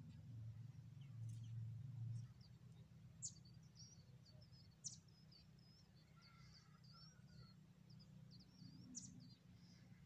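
Faint, high-pitched cheeping of nestlings begging in the nest: a string of short chirps from about three seconds in, broken by a few sharp ticks, over a low rumble.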